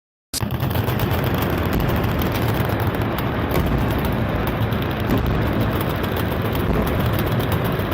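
Sustained rapid automatic gunfire from many machine guns at once, the reports running together over a low rumble, cutting in abruptly about a third of a second in.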